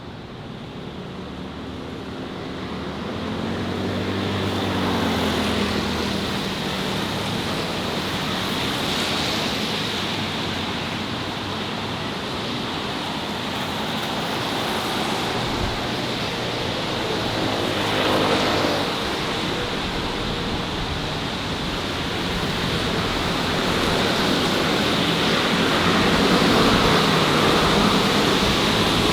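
Steady city road traffic noise, swelling over the first few seconds, with vehicles passing close by about four seconds in and again around eighteen seconds in, their engine hum sweeping in pitch as they go by.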